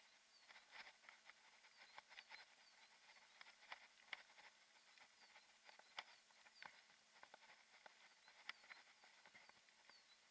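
Near silence, broken by faint, irregular clicks and rattles from a mountain bike and its mounted action camera jolting along a rough lane.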